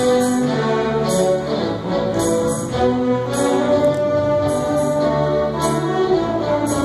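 Live orchestra playing, bowed strings and other instruments holding long sustained notes that change every second or so, with a light crisp accent about once a second.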